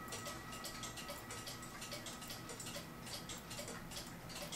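Mechanical clock ticking quietly, a rapid run of light clicks.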